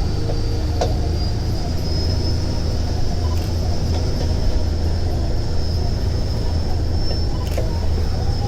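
Parasailing boat's engine running steadily with a deep rumble, and a thin high whine over it.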